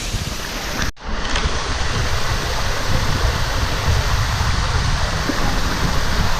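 Wind buffeting the microphone: a steady rushing noise with uneven low rumbling gusts, broken by a brief dropout about a second in.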